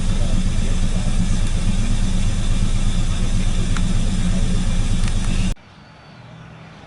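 Jeep Liberty's 3.7-litre V6 engine running steadily with a low rumble; the sound cuts off suddenly about five and a half seconds in, leaving a much quieter background.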